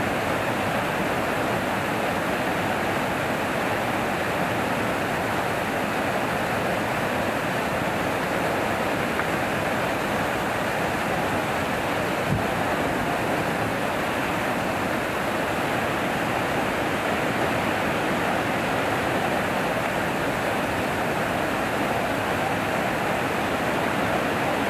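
Water pouring over a weir into churning white water, a steady, unbroken rush.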